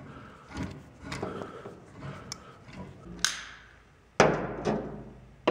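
Metal-on-metal clinks and knocks of a socket and extension on a brush hog's blade-bolt nut as it is spun loose. Then come a few sharp metal clanks that ring briefly, the loudest about four seconds in.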